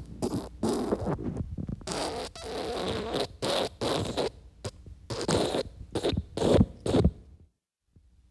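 Wet fart sound effect: a string of short, rasping fart bursts and one longer one about two seconds in, dropping to silence for a moment near the end.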